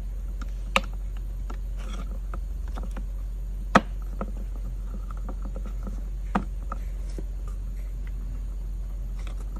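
Clear acrylic parts of a wire-weaving jig clicking and knocking against each other as they are handled and pressed into place by hand: three sharp clicks, the loudest about four seconds in, with light ticks between, over a steady low hum.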